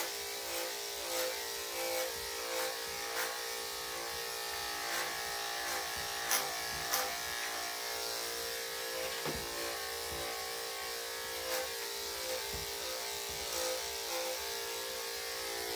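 Corded electric dog clippers fitted with a #7 blade, buzzing steadily as they shave a dog's body coat, with a few short clicks along the way.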